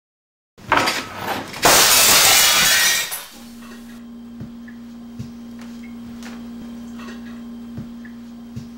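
Glass crashing and shattering, loudest about two seconds in. A steady low hum with faint, irregular ticks follows.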